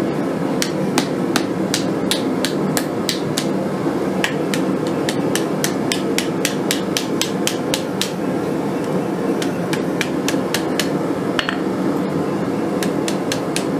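Hand hammer striking hot mild-steel flat bar on an anvil in quick, light blows, about two to three a second with a short pause about two-thirds of the way through, rolling the last petal of a one-piece forged rose. A steady low rumble runs underneath.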